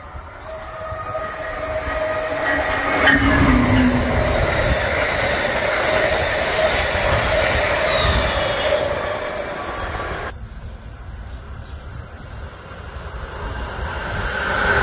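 Electric passenger train passing close by: wheels running over the rails with some wheel squeal, rising to a peak and easing off. About ten seconds in the sound drops off abruptly, then builds again as another train approaches.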